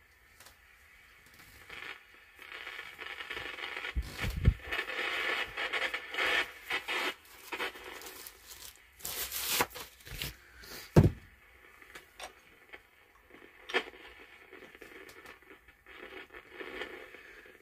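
Scraping and rustling handling noise from a vinyl record being lifted off a record player's turntable and handled, with two dull knocks and a sharp scrape in the middle.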